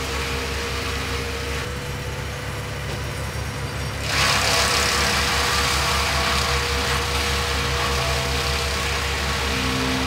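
An engine running steadily at a low idle. About four seconds in, a louder hissing noise comes in on top and carries on.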